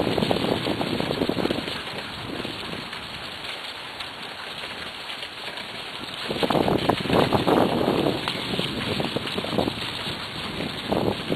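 Wind buffeting the microphone over a steady crackling rumble of a wheeled dog-training rig rolling over a leaf-strewn dirt track behind a running sled-dog team. The wind gusts loudest at the start and again from about six seconds in.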